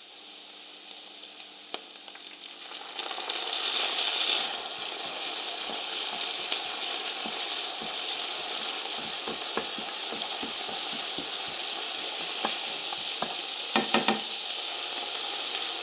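Chopped onions frying in oil with a splash of water in a non-stick pan, stirred with a wooden spoon: a steady sizzle with small crackles that swells about three seconds in. A few sharp clicks near the end.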